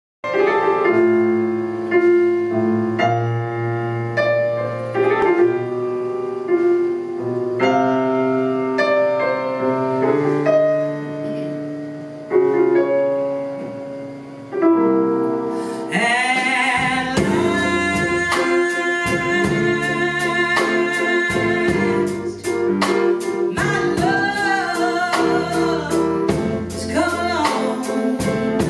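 Live band: an acoustic grand piano opens the song with sustained chords, and a little past halfway a woman's singing voice comes in with drums, cymbals and electric bass.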